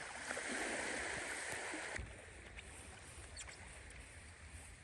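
Sea water washing at the shore where small ice pieces float on the surface: a steady rushing that drops off abruptly about two seconds in, leaving a quieter wash with a few faint ticks.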